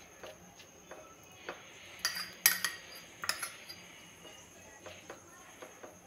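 Metal spoon scraping and clinking against a plate while spreading ketchup-mayonnaise sauce on toasted bread. A few sharp clinks come about two to three and a half seconds in, the loudest around two and a half seconds, with soft scrapes and ticks between.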